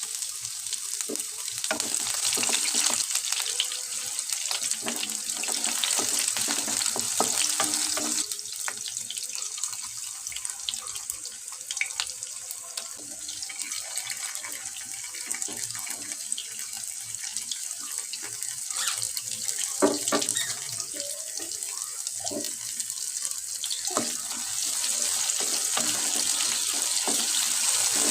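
Water running from a kitchen tap into a sink, a steady hiss, with scattered knocks and clatter of things being handled under it.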